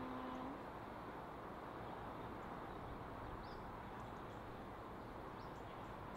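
The low note of a two-tone locomotive horn ends about half a second in. After it comes a steady, even noise with a few faint bird chirps.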